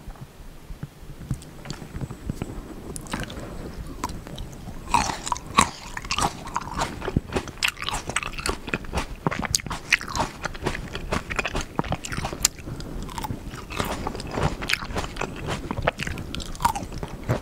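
Black Sapphire grapes being bitten and chewed whole, skin and all: a run of crunchy bites and chewing, sparse at first and much busier from about five seconds in.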